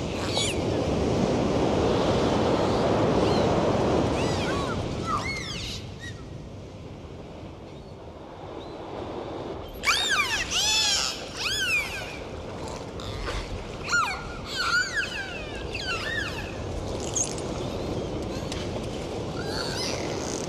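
Dolphins whistling: repeated high whistles that arch up and down in pitch, with a cluster of several overlapping whistles about ten seconds in. A rushing water sound lies beneath, heaviest in the first few seconds.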